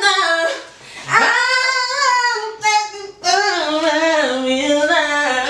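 A woman singing high, drawn-out notes unaccompanied, sliding in pitch, in long phrases with short breaks about one and three seconds in.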